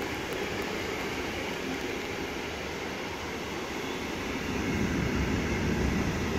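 Container wagons of a freight train rolling past on the rails, a steady rushing noise of wheels on track. A deeper rumble swells about two-thirds of the way through.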